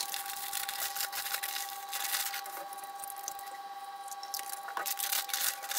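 Rolled oats rattling out of a crinkling plastic bag into a ceramic bowl, then milk pouring from a plastic jug onto the oats.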